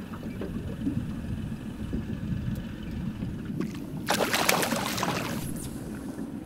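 Steady wind and water noise around a small boat. About four seconds in, a hooked pollack splashes at the surface for a second or so as it is drawn alongside.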